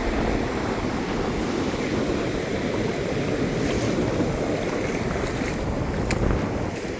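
Ocean surf washing onto the beach, a steady rush of noise, with some wind buffeting the microphone.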